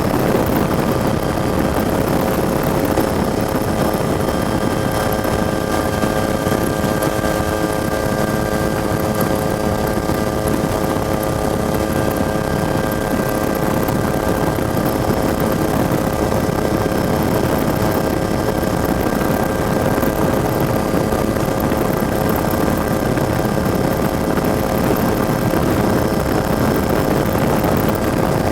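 Helicopter running steadily, heard from on board: a constant multi-tone turbine whine over an even rumble, with no change in pitch.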